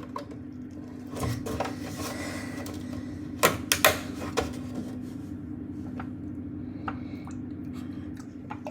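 Milk being poured into a cup, with a few sharp clicks and knocks from handling the carton and cup, the loudest a quick cluster about three and a half seconds in. A steady low hum runs underneath.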